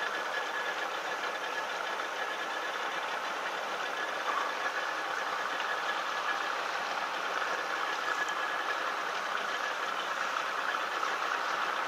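Boat engine running steadily, a constant even drone.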